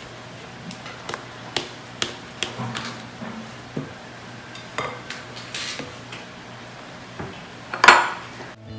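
Spatula knocking and scraping against glass mixing bowls while folding meringue into batter: a series of sharp clinks, the loudest one near the end.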